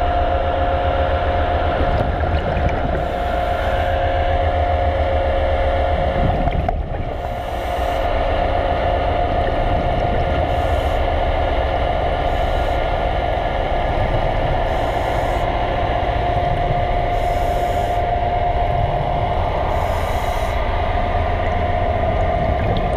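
Steady machinery hum heard underwater: a low drone with two steady mid-pitched tones on top, dipping briefly about seven seconds in.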